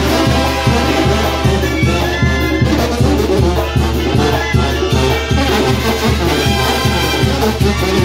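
Mexican brass banda playing live: trumpets and trombones carry the melody over a sousaphone bass line, with conga and drum kit keeping a steady beat.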